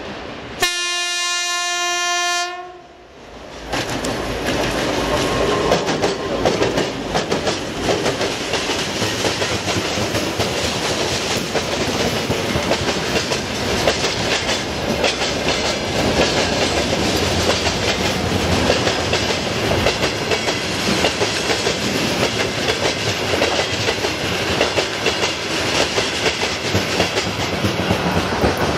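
Diesel locomotive air horn sounding one steady blast of about two seconds, about a second in. The 2M62U freight locomotive with its two-stroke diesels then passes close by, and its freight wagons roll past with a continuous clickety-clack of wheels over rail joints.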